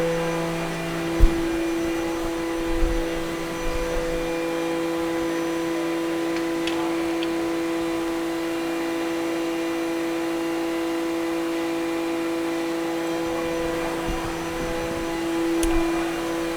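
2015 Haas VF-4SS CNC vertical machining center running, a steady mechanical hum with several fixed tones. One lower tone stops about a second in with a single sharp knock, and a few faint clicks follow.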